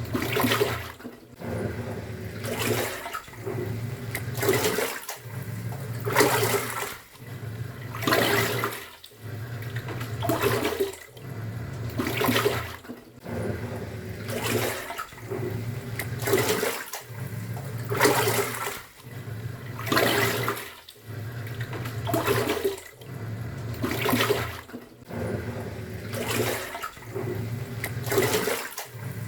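Top-loading pulsator washing machine agitating a load: the motor hums, stops and reverses about every two seconds, and the water sloshes in a surge with each turn of the pulsator.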